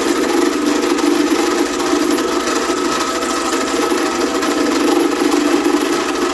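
2M112 Komunar bench drill press, used as a milling machine, running with an end mill cutting a metal workpiece: a steady motor and spindle hum with the fast, even chatter of the cutter.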